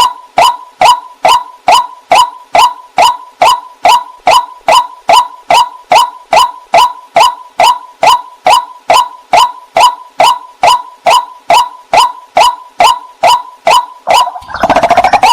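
White-breasted waterhen call: one short note repeated steadily about twice a second. Near the end a denser, rougher stretch of calling takes over.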